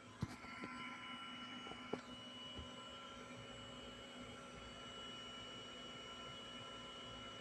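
Kawamoto NF2-250S well pump's electric motor running steadily under power, a hum with a steady whine, with a couple of light clicks in the first two seconds. The pump makes an abnormal noise while running, the sign of a fault in this junk unit.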